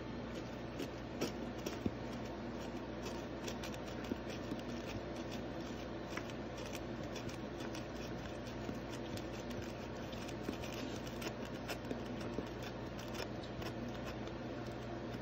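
A Shiba Inu lapping milk from a plastic cup, its tongue making quick, irregular wet clicks as it licks out the last drops, over a steady low background hum.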